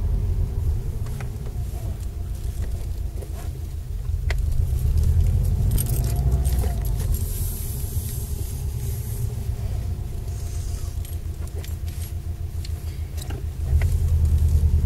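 Cabin sound of a Subaru Impreza WRX on the move: a steady low engine and road rumble with light clicks and rattles, getting louder near the end. There is no centre diff bearing whine, as the bearings in its five-speed gearbox have been replaced.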